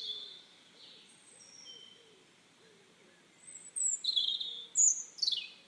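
Birds chirping: scattered faint high chirps, then a run of louder short chirps and trills in the last two seconds.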